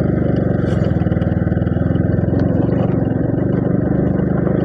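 Motorcycle engine running at a steady speed while being ridden, with a rapid, even pulse.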